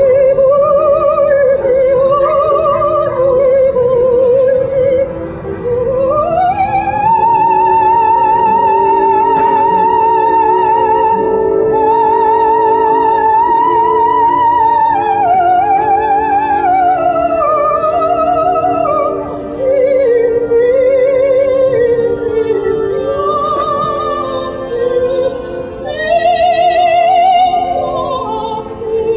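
Dog howling along to opera music in long, wobbling notes. The howl glides up about five seconds in and holds high, over the music's steady accompaniment.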